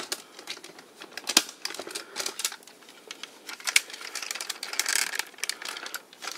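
Irregular clicks and taps of hard plastic toy parts being handled and snapped together on a TOMY DX Gransaurer transforming robot toy, with some soft rustling near the middle.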